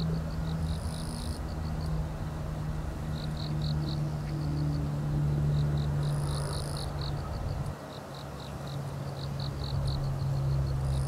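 Insects chirping in short rhythmic pulses, with a higher buzzing trill that comes in twice, over a steady low hum that eases off about three quarters of the way through.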